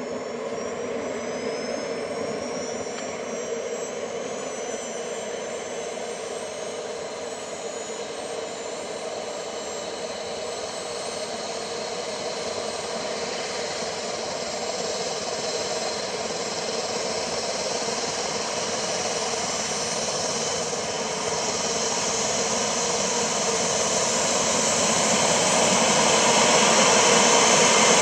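Radio-controlled F-16 model's miniature jet turbine starting up: a whine that climbs in pitch over the first few seconds, then a rushing run that grows steadily louder toward the end.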